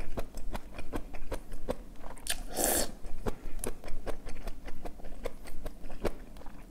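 Close-miked eating of braised kimchi: wet chewing and lip-smacking clicks in quick succession, with one louder slurp about two and a half seconds in as a strip of kimchi is sucked into the mouth.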